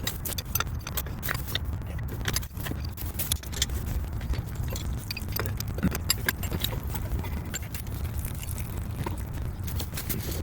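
Irregular metallic clinks and taps of pipe wrenches and fittings being handled while a pressure reducing valve on a water line is taken out, over a steady low rumble.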